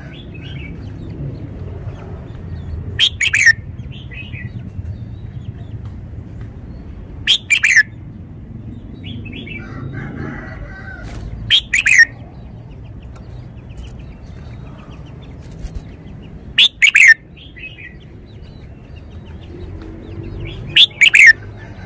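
Red-whiskered bulbul singing: five short, loud whistled phrases spaced about four seconds apart, each sweeping down in pitch, with softer chirps between them over a low steady rumble.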